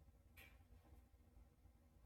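Wood fire burning quietly in a wood stove: one sharp crackle about half a second in and a fainter one about a second in, over a faint low rumble.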